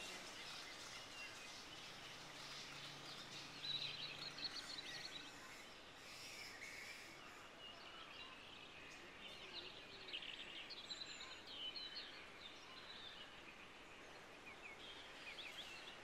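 Faint bird calls: scattered short chirps and twitters over a low hiss, busiest around four seconds in and again from about nine to twelve seconds.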